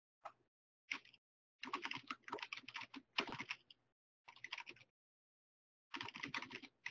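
Typing on a computer keyboard: short runs of keystrokes separated by pauses as a text message is typed out.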